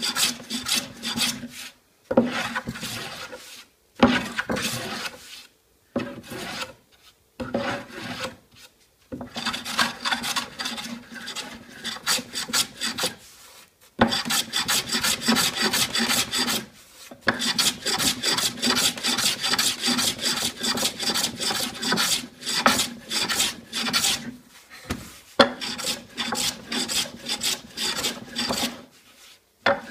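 Small hand tool scraped back and forth along the edge of a wooden tabletop in quick short strokes, a few a second, in runs broken by brief pauses: the dry rasp of the edge being trimmed and smoothed by hand.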